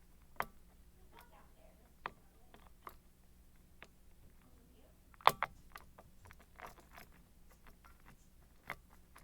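Sparse small metallic clicks and taps of a hook pick and tension wrench working the pins inside an Abus 55/60 padlock, the loudest about five seconds in.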